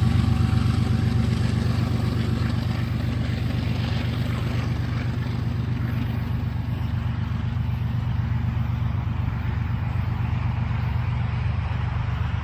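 Diesel freight locomotives rumbling steadily as the train pulls away, slowly fading.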